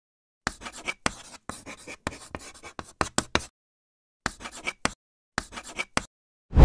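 Chalk scratching on a chalkboard as a "2" and then a plus sign are written. A run of short scraping strokes is followed by two shorter strokes near the end, one for each bar of the plus sign, with dead silence between them.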